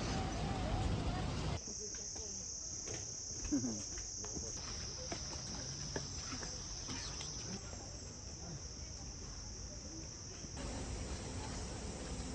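A brief rush of broad noise cuts off about one and a half seconds in. Then insects, crickets or cicadas, call in a steady high-pitched drone that steps slightly in pitch every few seconds.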